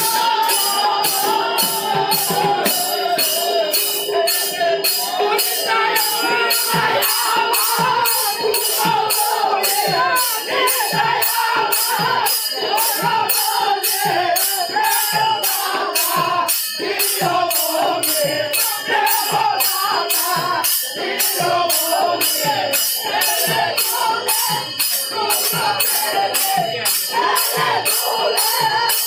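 Manipuri devotional kirtan: hand cymbals clash in a steady rhythm of about two strokes a second, with hand-played barrel drums and men singing a chant.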